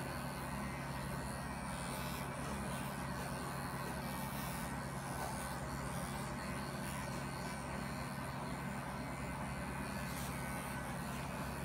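Electric animal clippers running with a steady hum while they shear wool from a German angora rabbit's hind leg and belly.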